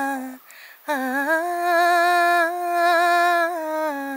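A woman singing a Malayalam film melody unaccompanied, on a wordless vowel: a note ends and she takes a quick breath about half a second in, then sings one long note that rises, is held with a slight wavering, and falls back near the end.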